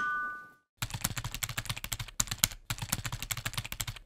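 A two-tone chime fades out in the first half second. After a brief silence, a typing sound effect starts: rapid keyboard clicks, many a second, with a few short pauses.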